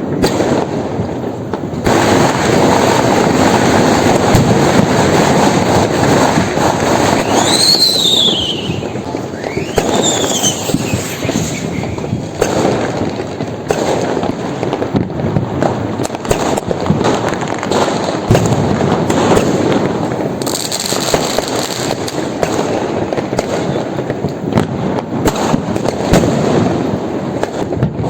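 Diwali firecrackers and fireworks going off in a dense, continuous barrage of bangs and crackles. Twice, about a quarter of the way in, a whistling rocket sends up a high whistle that rises and then falls.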